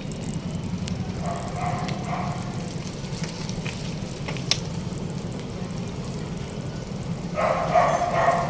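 Steady low drone of a river ferry's engine running, with crackling noise over it and a single sharp click about halfway through.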